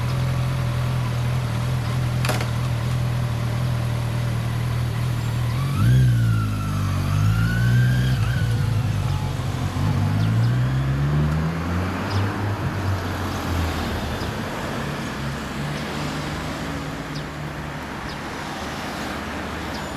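2016 Kawasaki Z1000's inline-four through a BEET NASSERT Evolution aftermarket muffler, idling steadily with a single click about two seconds in. About six seconds in it revs up and pulls away, the pitch rising in two climbs as it accelerates, then fades as the bike rides off.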